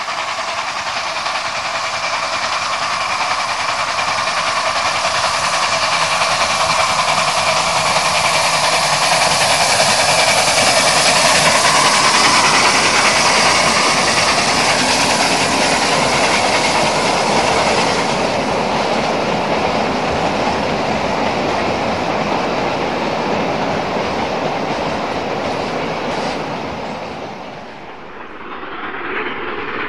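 HO-scale model trains running on the layout: a steady rumble with clickety-clack of wheels over rail joints, growing louder toward the middle and easing off, with a brief dip near the end.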